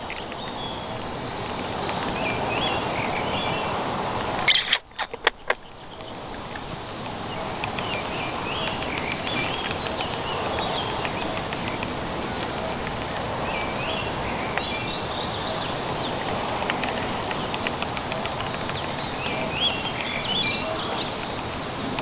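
Wild birds chirping and singing over a steady outdoor background hiss. A brief cluster of sharp clicks comes about five seconds in.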